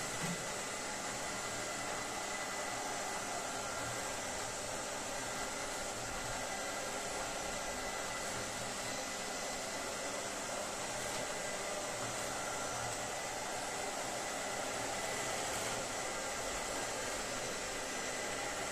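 iLife V5s Pro robot vacuum cleaner running: a steady whirring hiss from its suction fan and brushes, with a faint high whine held under it.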